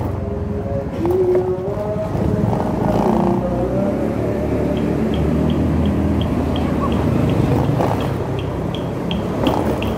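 Motorcycle riding with a steady engine and road rumble. In the first few seconds a chanting voice is heard over it. From about halfway a short high beep repeats about three times a second.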